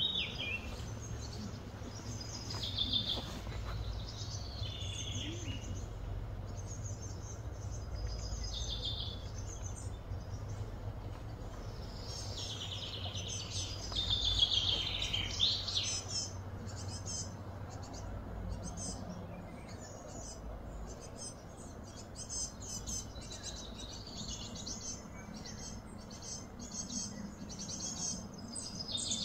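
Outdoor birdsong: several birds singing and chirping in short whistled phrases, loudest about halfway through, over a low steady background rumble.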